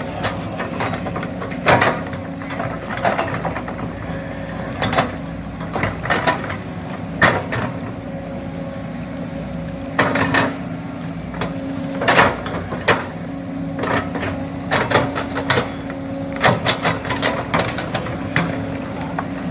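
Remote-controlled model excavator at work: a steady motor hum runs under irregular sharp clicks and knocks from the bucket and arm as it digs.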